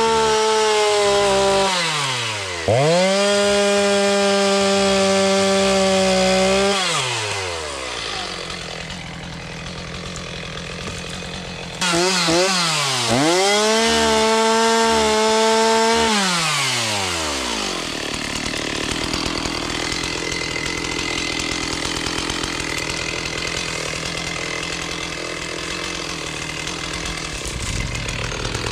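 Chainsaw revved to full throttle in three bursts of a few seconds each, the pitch sagging slightly as it cuts through juniper, then dropping back to a low idle between cuts and for the latter half.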